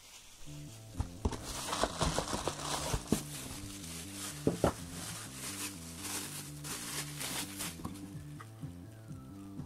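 Plastic wrapping crinkling and rustling as a stepper motor is unwrapped by hand, with several sharp clicks and knocks. Background music comes in about half a second in.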